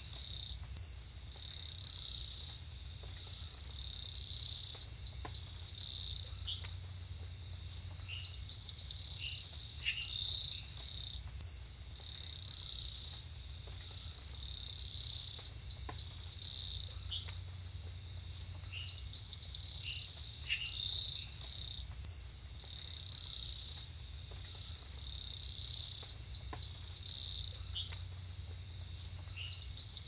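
Rainforest insect chorus: a dense, high-pitched trilling that swells and fades every second or two, with short falling chirps mixed in.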